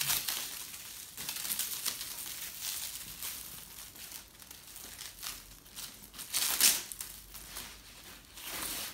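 Packaging crinkling and rustling in irregular bursts as a parcel is unwrapped, the loudest burst about six and a half seconds in.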